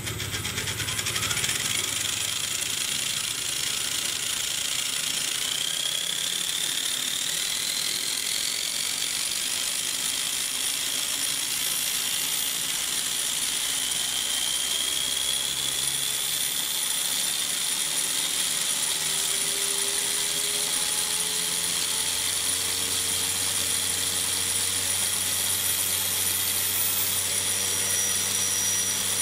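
Brushless outrunner motor driving a homemade RC helicopter main rotor gearbox on test. It spins up with a whine that rises in pitch over the first several seconds, then runs steadily with the gears whirring.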